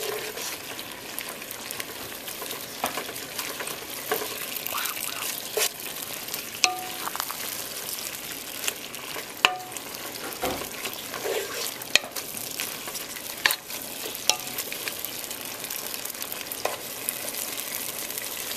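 Spinach and onion sizzling in oil in a pot as the spinach wilts down, stirred with a wooden spoon: a steady hiss with several sharp knocks of the spoon against the pot.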